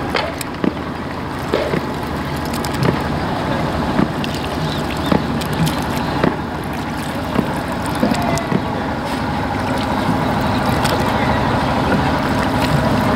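Wooden rowboat being rowed: the oars knock in their wooden locks at irregular intervals of about a second, over a steady rush of water moving along the hull.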